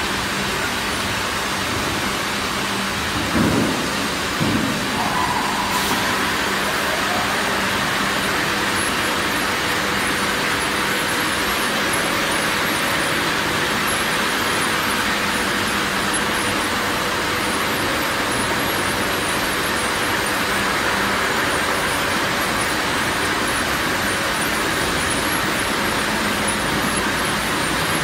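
Automatic AAC block side plate washer and its electric motors running in a factory, a steady machine din with a low hum. Two low thuds come a few seconds in.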